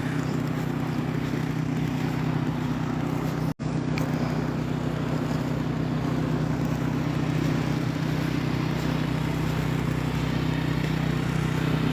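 Steady engine hum with a wash of noise, unchanging in pitch, cutting out for an instant about three and a half seconds in.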